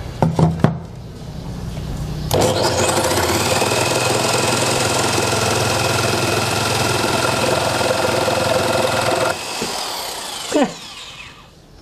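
Bosch GST 8000 jigsaw sawing through a board of soft wood: the motor runs up, and from about two seconds in the blade cuts for about seven seconds with a loud, steady buzzing whine. The cut ends, the saw runs on more quietly and winds down, and a single knock follows.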